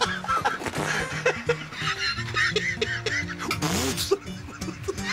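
A man laughing heartily over background music with held notes.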